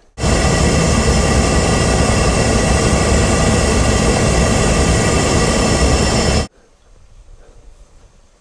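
Helicopter in flight: steady engine whine and rotor noise, cutting in sharply just after the start and stopping sharply about six and a half seconds in.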